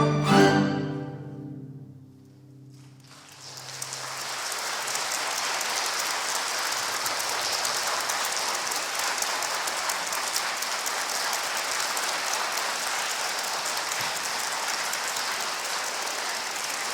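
A string orchestra's final chord ringing out and dying away, then an audience applauding steadily from about three seconds in.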